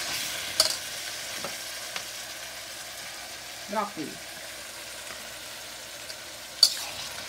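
Vegetables sizzling in hot oil in a metal wok while a metal slotted spatula stirs them. There is a sharp clink of the spatula against the wok about half a second in, a few lighter ones, and a louder clink near the end.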